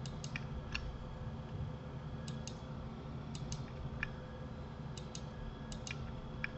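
Clicks from a computer mouse and keyboard: about a dozen short, sharp clicks, many in quick pairs, over a steady low hum.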